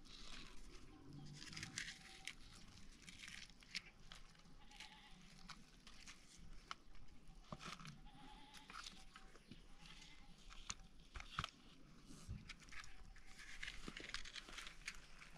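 Livestock bleating faintly off and on, with a few sharp knocks and cracks of dry firewood sticks being handled against a stone.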